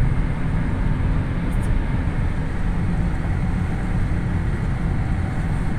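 Steady road noise inside a moving car's cabin: an even low rumble of tyres and engine.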